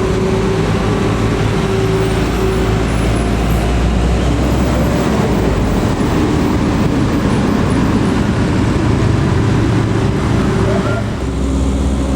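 Tour bus engine running steadily under load, with tyre and road traffic noise as buses pass on an uphill road.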